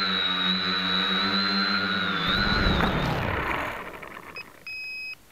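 The SK450KK2 quadcopter's four electric motors and propellers whining steadily, heard from its onboard camera. About two seconds in they wind down, falling in pitch, and stop. Near the end comes a short electronic beep and then a longer one, about half a second.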